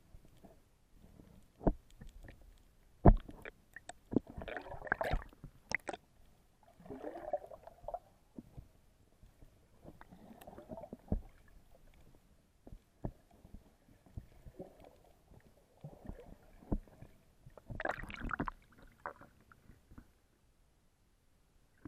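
Muffled underwater sound picked up by an action camera in its waterproof housing while snorkeling: irregular knocks and clicks with several bursts of bubbling, swirling water. The loudest is a sharp knock about three seconds in, and it goes quiet near the end.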